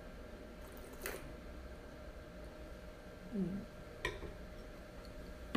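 White wine being sipped from a stemmed wine glass: a faint slurp about a second in, a brief low hum from the taster, then the glass set down on the wooden table with a light knock about four seconds in.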